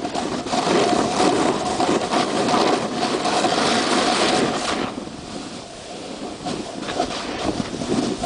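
Wind buffeting the camera's microphone, a rough rushing noise that eases about five seconds in, with a faint steady hum underneath.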